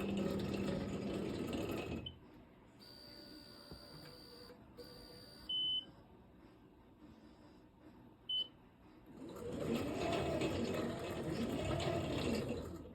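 NEMA 23 stepper motors driving the gantry of a homemade CNC table, whining in pitches that rise and fall as each move speeds up and slows down. The whine comes in two stretches, at the start and again from about two-thirds in, with a quieter pause between them like the Z-axis pause the builder wants to remove. Two short high beeps sound during the pause.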